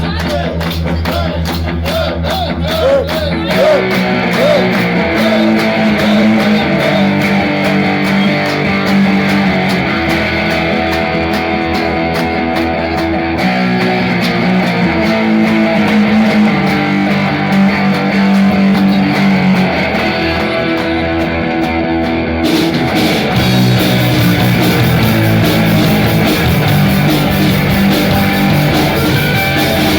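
Live band playing rock music with guitar over a steady beat. It grows brighter and fuller about two-thirds of the way through.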